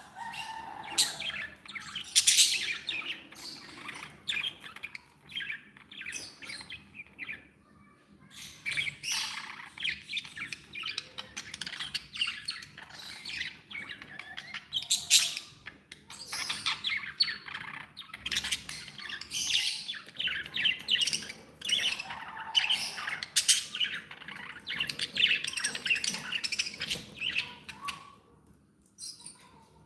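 Pet budgerigars chattering: a dense run of quick chirps, warbles and squawks, with a short lull about seven seconds in and another near the end.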